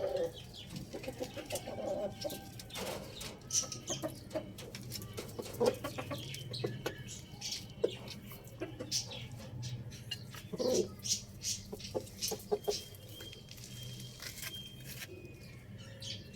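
Chickens clucking in short, scattered calls, mixed with other quick bird calls and clicks, over a steady low hum.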